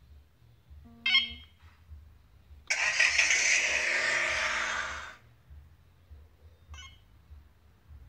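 A short electronic beep, then about a second and a half later the BMW 750's engine is remote-started: it cranks and fires with a loud burst lasting about two and a half seconds that dies away to a quiet idle. Another brief beep comes near the end.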